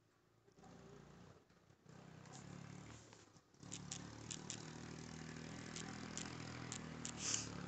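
Low, steady machine hum that gets louder about halfway through, with a few faint clicks near the end.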